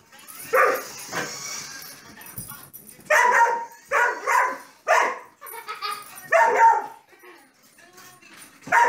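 A dog barking in play: a series of about eight short, sharp barks at irregular intervals.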